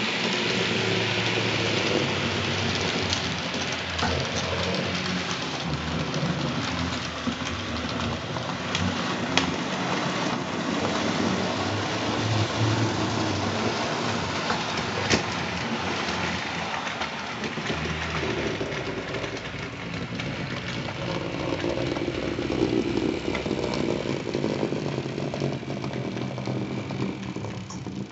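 Model class 93 steam locomotive with a freight train running steadily on model track: motor and gear hum with rolling wheel noise and scattered sharp clicks. The model is being run in after long storage.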